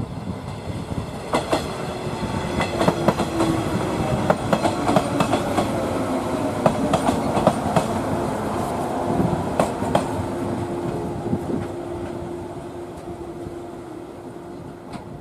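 Shinano Railway 115 series three-car electric train running past at close range, its wheels clicking over the rail joints with a steady hum underneath. The sound builds up, then fades over the last few seconds as the train moves away.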